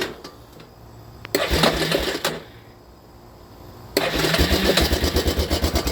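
Motorcycle starter cranking the engine, jump-started from a clipped-on DeWalt FlexVolt power-tool battery: a short crank about a second and a half in, then about four seconds in the engine turns over and keeps going with a rapid, even beat.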